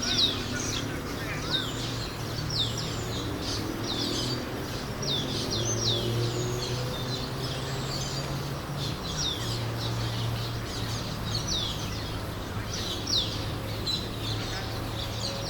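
Many birds chirping together in a tree at dusk roost, a dense overlapping chorus of short, high, downward-sweeping calls, over a steady low hum.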